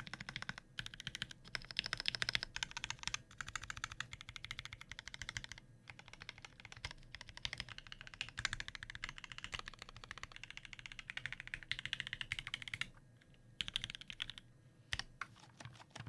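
Fast typing on a custom Switch Couture ElectroType Alice-layout mechanical keyboard with a 5 mm integrated plate, lubed and filmed H1 switches, lubed Durock stabilizers and GMK keycaps. The keystrokes come in quick runs with short pauses, and thin out to a few scattered presses near the end.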